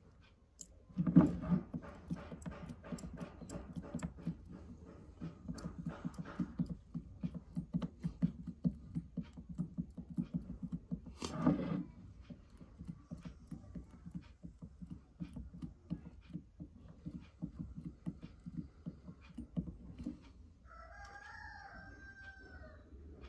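A refillable travel perfume atomizer being pumped down onto a perfume bottle's spray nozzle to fill it, a long run of small rapid plastic-and-glass clicks. Near the end a rooster crows faintly in the background.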